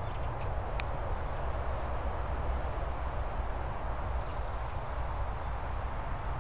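Steady wind rumble on the microphone, with faint short high chirps of swallows a few times, near the start and again around the middle.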